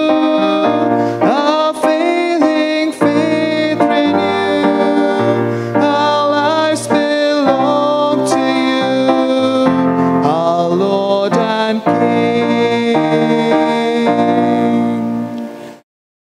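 Offertory hymn sung with keyboard accompaniment, fading out to silence near the end.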